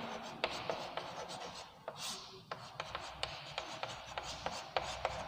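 Chalk writing on a chalkboard: short, irregular scratches and taps as letters are drawn by hand.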